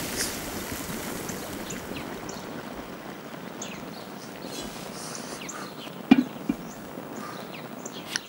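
A pot boiling over on a gas hob: a steady hiss of bubbling foam that slowly fades, with small ticks throughout, a sharp knock about six seconds in and a click near the end.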